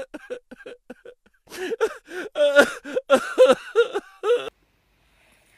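A person's voice making short wordless sounds in quick succession, which stop about four and a half seconds in.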